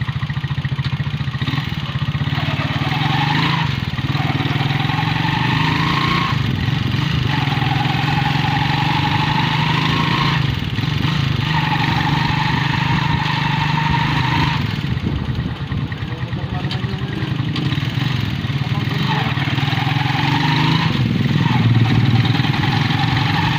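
Motorcycle engine of a tricycle running as it rides along, heard from inside the sidecar, with road noise. A higher whine rises in pitch, breaks off and starts again every few seconds.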